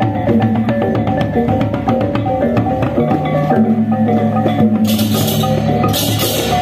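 Balinese gamelan playing: fast, even strokes on metal mallet instruments over sustained ringing tones. Bursts of crashing cymbals join about five seconds in.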